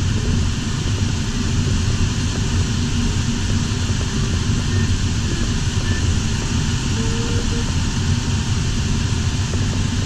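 Steady airflow noise inside the cockpit of an LS4 sailplane in gliding flight, a low, even rush of air over the canopy and fuselage.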